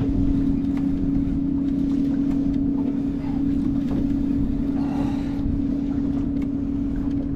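Boat's engine idling with a steady hum, over low rumbling wind and water noise.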